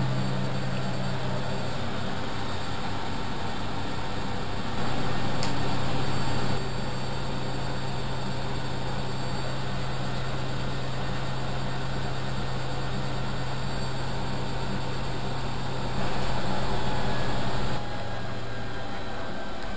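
Vintage washing machine running, a steady motor hum with noise, getting louder for about two seconds twice, about five seconds in and again near the end.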